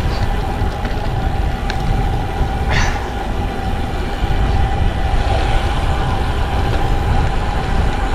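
Wind rumbling heavily on the microphone of a camera on a moving bicycle, with a faint steady hum underneath and a short hiss about three seconds in.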